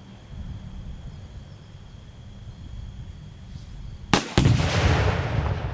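A rifle shot cracks about four seconds in, and a fraction of a second later one pound of homemade Tannerite detonates with a very loud boom whose rumble carries on for over a second.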